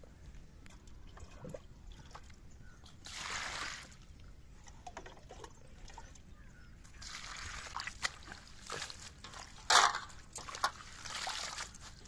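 Hands swishing fresh fenugreek leaves around in water in a steel bowl to wash them: repeated bursts of sloshing and splashing, with a sudden louder splash about ten seconds in.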